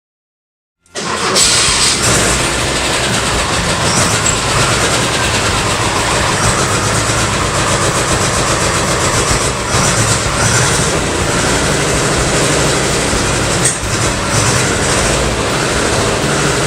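Porsche 912E air-cooled Type 4 2.0-litre flat-four engine running, cutting in abruptly about a second in and holding steady, with one sharp crack about two-thirds of the way through. The engine has an exhaust leak.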